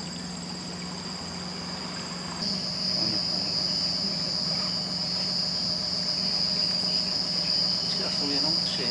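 Night insect chorus: a steady high-pitched trill that gets louder about two and a half seconds in, with a low steady hum underneath.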